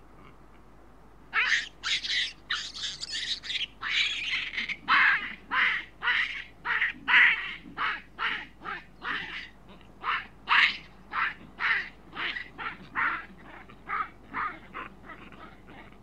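Juvenile chacma baboons screaming: a rapid series of loud calls, about two a second, beginning about a second in.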